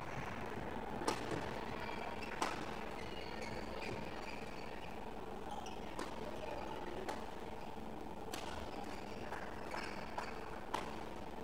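Badminton rackets striking the shuttlecock in a rally: a series of sharp hits spaced irregularly, mostly one to two seconds apart, over the steady hum of a sports hall.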